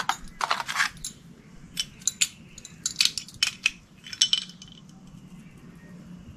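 A small metal spanner clinking against the brake-light switch screw and nut on a motorcycle's rear brake lever as the nut is tightened: about ten light, irregular metallic clinks.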